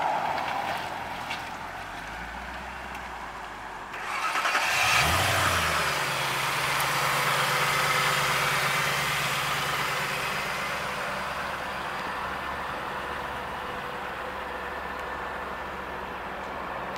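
The 2004 Ford Thunderbird's 3.9-litre V8, fitted with an aftermarket cold-air intake, is started about four seconds in. It flares briefly, then settles into a steady idle that slowly eases down. Before that, the car is heard passing.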